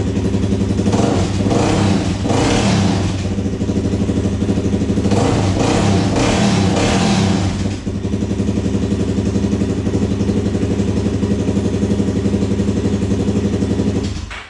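Suzuki 400 ATV's single-cylinder engine running, revved up twice, then shut off abruptly near the end.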